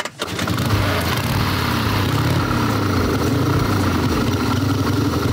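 1928 Harley-Davidson JD's F-head V-twin engine fires about a quarter second in and keeps running steadily, started after its clutch was reinstalled, tightened and adjusted.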